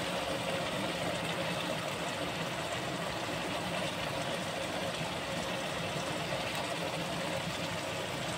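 Ground meat cooking in sauce in a wok, a steady sizzling hiss with a faint steady hum beneath it.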